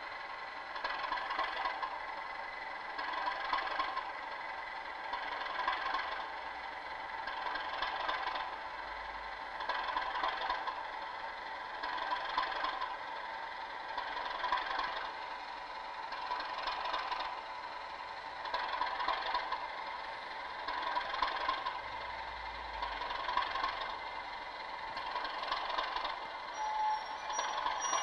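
Sound decoder in a model class 37 diesel locomotive playing its diesel engine sound through the model's small speaker as the locomotive crawls at a low speed step, swelling and easing about every two seconds. The sound plays on without a break as it crosses an insulfrog long diamond crossing, a sign that it keeps power through the crossing with no issues.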